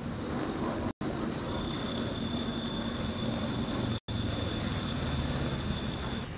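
Steady low rumble of street noise with a thin, high, steady whine over its middle stretch, broken twice by a sudden split-second cut to silence where the clips are joined.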